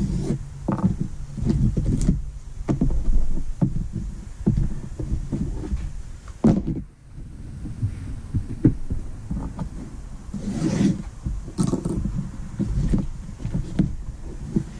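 Hands working vinyl upholstery around a kick panel board on a workbench: irregular taps, knocks and rustling as the material is pulled and pressed down, over a low rumble.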